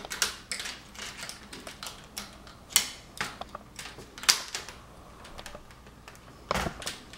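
Plastic screen bezel of a laptop being pried loose with a small screwdriver: irregular sharp clicks and snaps as its clips pop free, with scraping and handling of the plastic. The loudest snaps come about three and about four seconds in.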